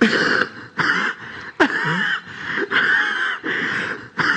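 A sick woman's labored, wheezing gasps and moans, six or seven in a row, each about half a second long.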